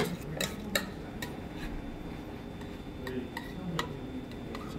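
Scattered light clicks and clinks of dishes on a stainless-steel kitchen counter, about half a dozen separate ticks, the loudest less than a second in.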